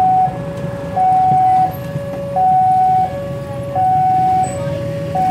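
Railway level-crossing warning alarm sounding with the barriers down: an electronic two-tone chime, a higher and a lower note alternating steadily, each held for under a second, the higher note louder. A low engine hum runs beneath it.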